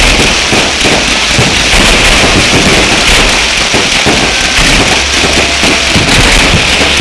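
Fireworks going off in a loud, continuous barrage of rapid crackling pops and bangs, with no pauses.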